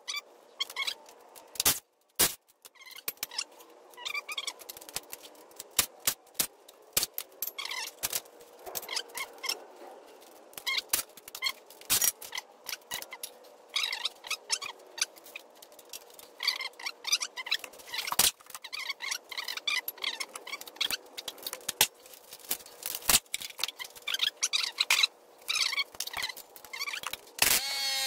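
Metal hand tools clicking, clinking and knocking against a manual transmission case as its bolts are worked loose, over a faint steady hum. Near the end a power tool starts up with a steady whine.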